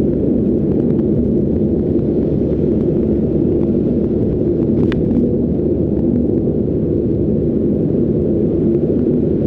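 Steady low rumble of road and engine noise inside a moving car's cabin, with a faint click about halfway through.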